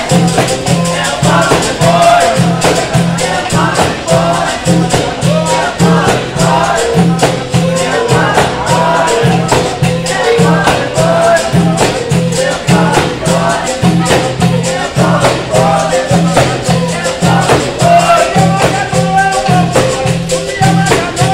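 Capoeira Angola roda bateria playing: berimbaus and pandeiros keep a steady beat of about two to three strokes a second, with singing over it.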